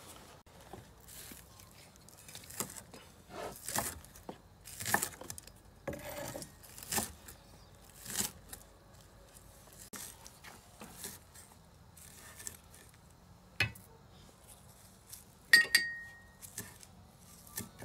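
Cleaver chopping spring onions and herbs on a wooden chopping block, irregular knocks of the blade on the wood. Near the end comes a sharper clink with a short ring, the loudest sound.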